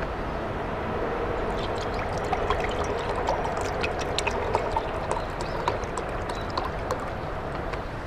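Green tea poured from a plastic bottle into a ceramic mug: a steady stream of liquid that starts about a second in and stops after roughly five seconds.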